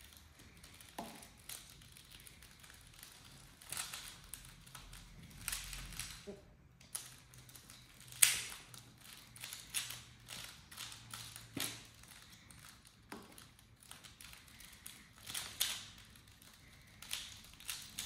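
Plastic Pyraminx (pyramid-shaped twisty puzzle) being turned by hand while it is solved: irregular clicks and clacks as its layers twist, with short pauses between moves.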